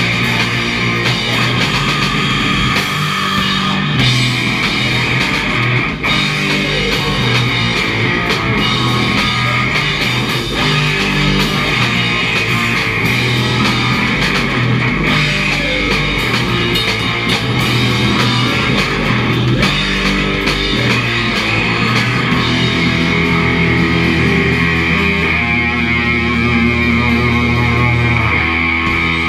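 Live heavy rock band playing loud: electric guitar over a drum kit.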